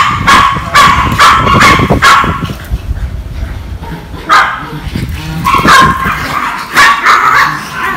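Chihuahuas barking loudly and repeatedly in sharp yaps, coming in quick runs with a short lull about halfway through.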